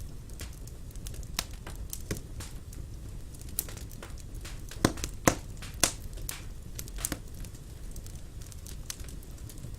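Wood fire burning in a fireplace: many small crackles and sharp pops over a low steady rumble of the flames, with a few louder pops around the middle.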